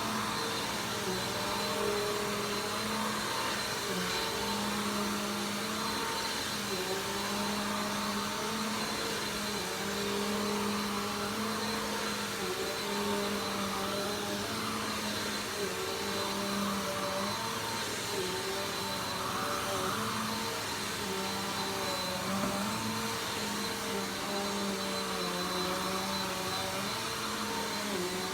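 Vacuum cleaner running steadily, a constant motor hum over airflow hiss, its pitch wavering slightly now and then.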